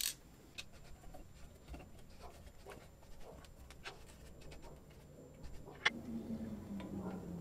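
Faint scattered clicks and taps of small metal parts being handled and pressed in a bench vise, with one sharper click about six seconds in. A faint low hum with a slowly falling pitch follows it.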